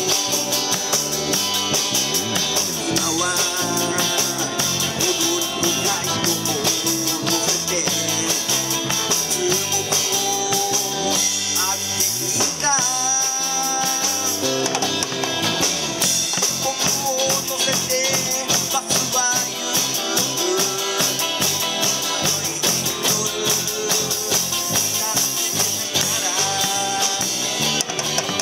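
A live rock and roll band playing through a PA: two electric guitars, electric bass and a drum kit with steady cymbals, and a man singing lead.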